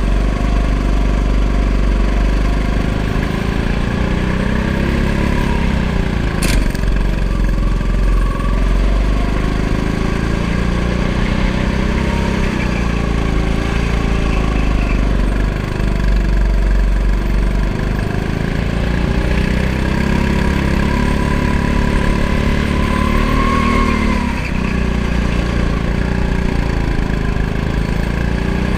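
Go-kart engine running hard, its pitch rising and falling repeatedly as the throttle opens and closes, over a heavy low rumble heard from on board the kart. One sharp knock about six and a half seconds in.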